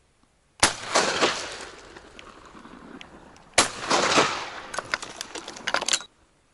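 Two shotgun shots about three seconds apart, each followed by a rolling echo that dies away over about a second. Just before the end comes a quick run of short sharp clicks and knocks.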